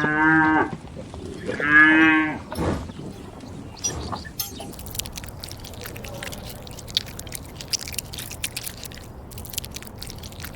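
A cow mooing twice, two short calls about two seconds apart, followed by a long run of faint clicks and crackles.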